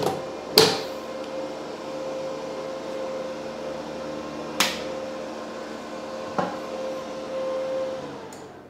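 Multipro 160A inverter welding machine humming steadily, its cooling fan running, with three sharp knocks of handling; the hum fades out near the end.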